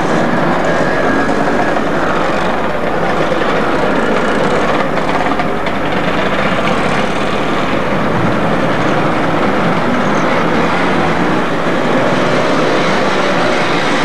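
A group of motorcycles riding slowly past in a column, their engines running together as one steady, loud, continuous noise.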